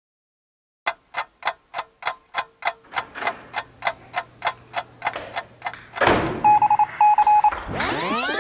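After a moment of silence, a steady run of sharp clicks, about four a second, goes on for about five seconds. Then comes a short high beep repeated three times, and near the end a rising sweep.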